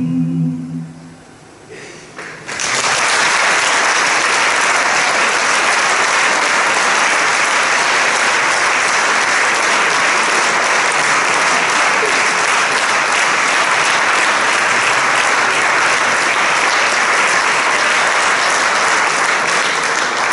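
A male vocal group's final held chord fades out, and after a brief hush an audience breaks into applause about two and a half seconds in, clapping steadily and loudly.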